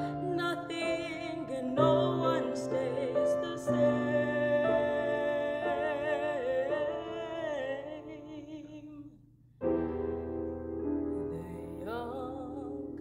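Mezzo-soprano singing classical art song with vibrato, accompanied on grand piano. Both stop briefly about nine and a half seconds in, then the piano comes back in with a chord and the voice re-enters near the end.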